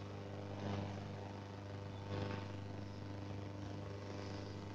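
Faint scratch of a marker drawn across a whiteboard, two short strokes about a second and a half apart, over a steady low electrical hum.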